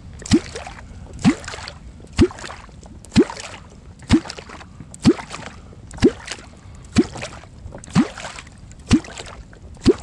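Catfish kwok being struck into the water in a steady rhythm, about once a second, eleven times: each stroke a hollow, rising-pitched bloop with a splash. This is the call used to draw catfish up from the depths to the bait.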